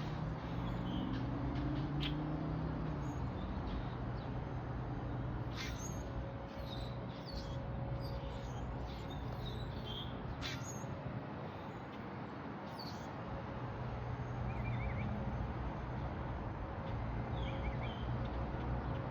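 Small birds chirping in short, scattered calls over a steady low background rumble, with a few sharp clicks.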